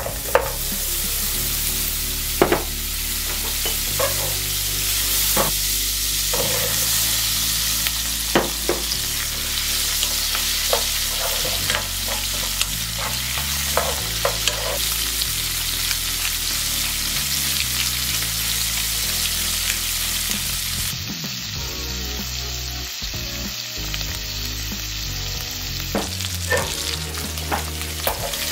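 Whole large shrimp (daeha, fleshy prawns) sizzling in butter in a nonstick pan while being stirred, with a steady frying hiss and irregular knocks of the utensil against the pan every second or two.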